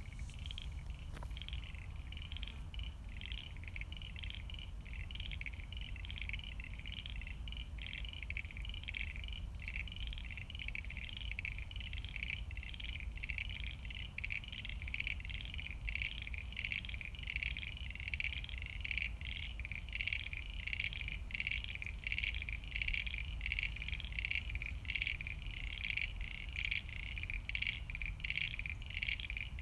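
A chorus of pond frogs calling, rapid repeated pulsed calls overlapping without pause, over a steady low rumble.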